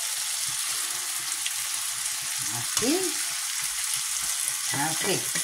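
Sofrito of onion, green and red peppers and tomato frying in olive oil in a pan, a steady sizzle, as browned chicken thighs are laid into it with tongs.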